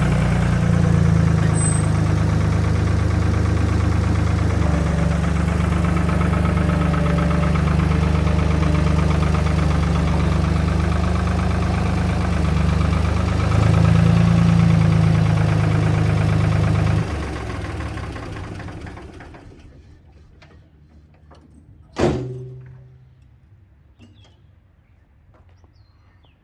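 Ford 3600's three-cylinder diesel engine idling steadily, then shut off about two-thirds of the way through and dying away. A few seconds later, a single sharp knock.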